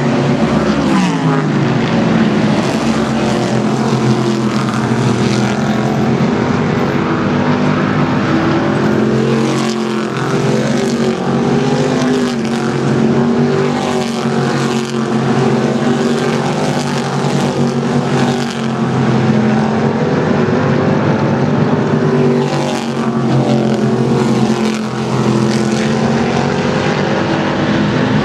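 Several racing car engines running hard together at speed, loud and continuous, with engine pitches gliding up and down as the cars pass and overlap.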